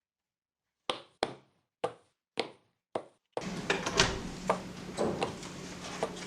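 Five knocks on a door, a quick pair followed by three evenly spaced knocks, each sharp with a short ring. Room ambience then comes in with small clicks and movement sounds.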